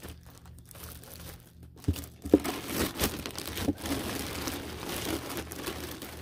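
Clear plastic bag crinkling and rustling as it is handled and pulled off a packaged display case, with a few sharp crackles about two seconds in.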